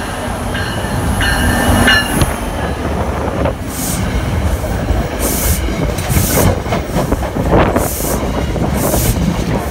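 Commuter train running past close by: an NJ Transit ALP-45DP locomotive on diesel goes by in the first couple of seconds. Then the Metro-North coaches roll past with steady wheel-on-rail noise and repeated short hissing bursts about once a second.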